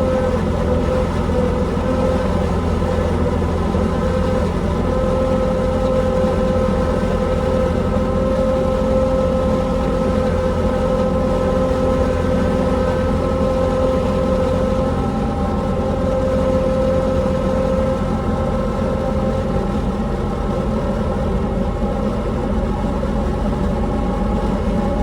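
John Deere 260 skid steer's diesel engine running steadily under work, with a steady high tone over the low rumble.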